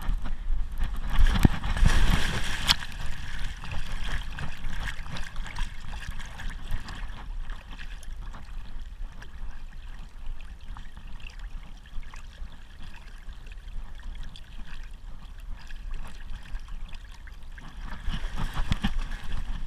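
Rumbling, rustling noise from a GoPro harnessed to a Labrador's back as the dog moves about, with wind and body movement rubbing on the camera mount. It is louder for the first few seconds and again near the end.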